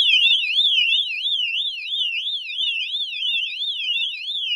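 Electronic fire alarm horn strobe sounding loudly, starting abruptly. Its piercing high tone sweeps rapidly up and down, about three times a second, in a siren/warble pattern, with two overlapping sweeping tones.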